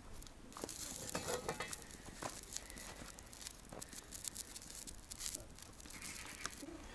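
Small wood fire crackling, with scattered faint, irregular clicks and pops.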